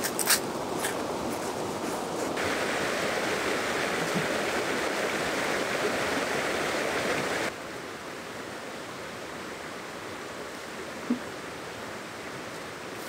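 A footstep crunches in dry fallen leaves at the very start, then a fast river rushes with a steady wash of running water. The rush drops to a softer background about halfway through.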